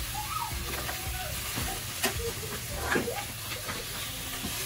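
Frog meat frying in oil in a stainless pan, sizzling steadily, while a metal spatula stirs it. There are two sharper clacks of the spatula against the pan, about two and three seconds in.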